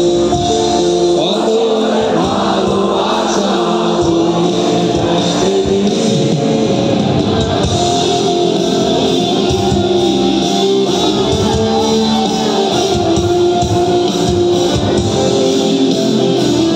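Rock band playing live on electric guitar and full band, with singing, heard from within the crowd.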